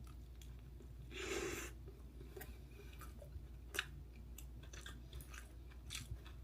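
Soft chewing of a mouthful of dumpling, with small wet mouth clicks, a brief hiss about a second in, and one sharper click near the middle.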